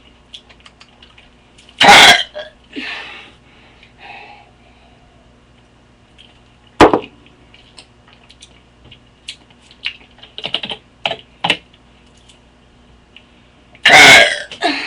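A boy burping on purpose into a webcam microphone: three short, loud burps, about two seconds in, about seven seconds in and near the end. Light clicks and taps scatter between them.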